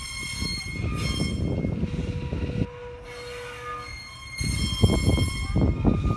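J. Neils Lumber Co. Shay #5 steam locomotive's modified five-chime whistle blowing two long blasts, the first stopping a little over halfway through and the second starting near the end, over the rumble of the moving train.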